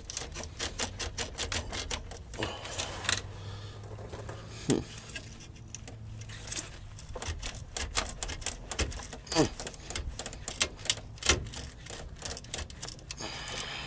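Rapid, irregular clicking and tapping of plastic parts as a hose fitting is worked onto a new evap vent solenoid canister, several clicks a second with a few louder knocks.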